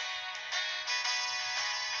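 Sanyo Vero cell phone playing a ringtone melody through its small built-in speaker: bright synthesized notes with almost no bass, a new note about every half second.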